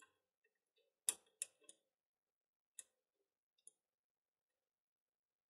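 A few small, sharp clicks of a hex key working a screw in the bracket at the top of a 3D printer's frame: three quick clicks about a second in, then two more spaced out, with near silence between.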